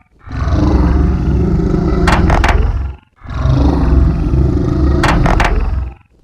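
Designed creature sound effect for the giant sea scorpion Jaekelopterus: two long, low-pitched roar-like calls, each nearly three seconds, with a short break between them. A quick run of three clicks falls about two-thirds of the way through each call.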